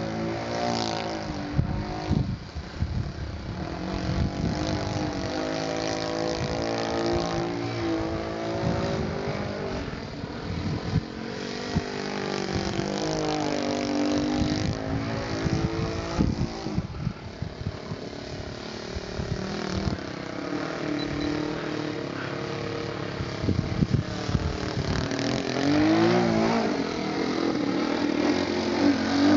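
Wrong Way RC Slide 58 aerobatic model airplane flying, its motor and propeller buzzing and swinging up and down in pitch as the throttle changes and the plane passes. It rises in pitch and grows louder near the end as the plane comes in low.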